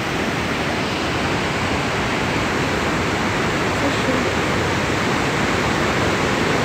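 White water of the Storforsen rapids rushing and crashing against rocks: a loud, steady, even rush.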